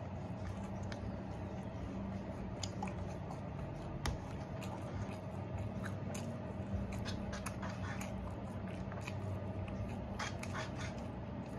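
Eating takeout: a plastic fork scraping and clicking against a plastic takeout container, with chewing and small mouth sounds. A sharper click comes about four seconds in, over a steady low hum.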